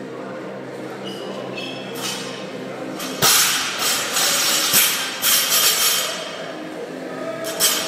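Loaded barbell with bumper plates clanking as it is pulled from the floor and caught about three seconds in, then dropped to the floor with a series of rattling impacts as the plates bounce.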